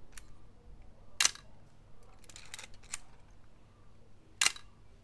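Canon FTb SLR firing its cloth focal-plane shutter at 1/125 s: a sharp click about a second in and another near the end, with lighter mechanical clicks between.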